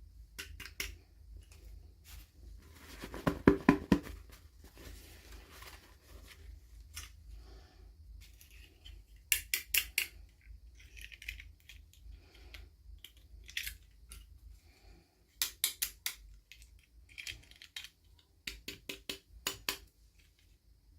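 Toy packaging being opened by hand: short bursts of sharp clicks and snips, the loudest about three seconds in, with quieter rustling and handling between them.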